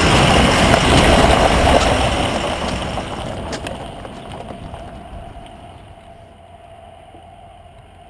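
Ford F-250 diesel pickup driving over and away on a gravel road, its engine and tyre noise fading steadily until it is faint.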